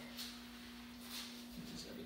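Steady low hum under a few faint, brief crackles of tortilla chips being scooped through a bowl of salsa.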